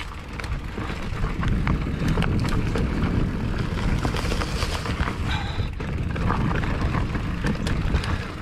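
Mountain bike riding over a rocky trail: a continuous low rumble of tyre and wind noise, with scattered clicks, knocks and rattles from the bike jolting over rock.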